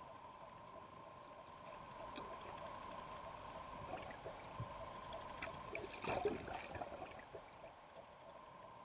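Muffled water sloshing and gurgling around a camera held under the surface, with a louder burst of splashing about six seconds in. Two faint steady tones run underneath.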